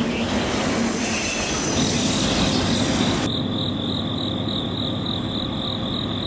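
Double-stack intermodal freight train rolling past close by, its cars and wheels making a loud, continuous rail noise. About three seconds in it gives way abruptly to crickets chirping in a steady, pulsing trill over a faint low rumble.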